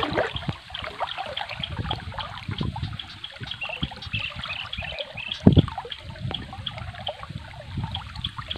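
Water trickling and splashing around hands working in waist-deep river water, with many small drips and one louder thump about five and a half seconds in.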